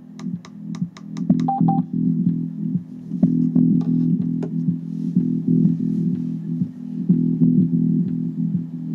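Music with bass guitar and guitar played back through a Jabra Solemate Bluetooth speaker as a sound test, heavy in the low end.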